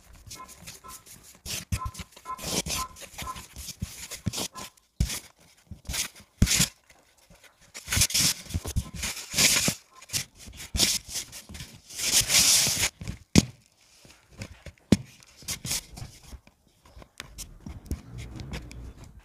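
A hand mixing and kneading flour and water into a stiff dough in a bamboo bowl: irregular knocks of hand and dough against the bowl, with squelches and longer scraping, rubbing stretches as the dough is pressed and dragged around the bowl.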